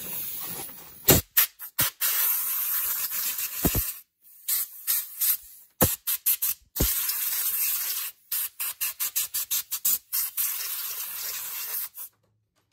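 Compressed-air blowgun blowing dirt off the top of an engine around the spark plug wires before the plugs come out, in a run of hissing blasts: several long ones of a second or two broken up by quick short puffs, stopping shortly before the end.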